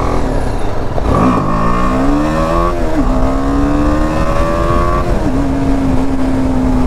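Motorcycle engine pulling away and accelerating through the gears. The note rises, drops sharply at a gear change about three seconds in, rises again and drops at a second shift about five seconds in, then holds steady at cruising speed, over a heavy low rumble.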